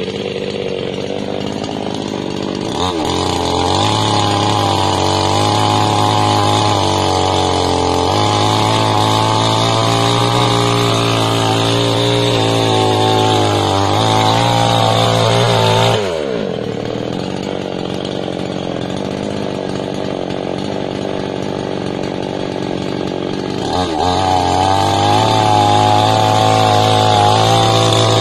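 52cc Stihl two-stroke chainsaw with a 20-inch bar, idling, then opened to full throttle about three seconds in and held there, its pitch wavering as it cuts into a log. About halfway through it drops back to idle, and it is revved to full throttle again near the end.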